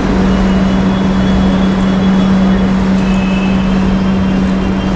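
Metro train standing at the platform, its equipment running with a steady low hum over a constant wash of station noise.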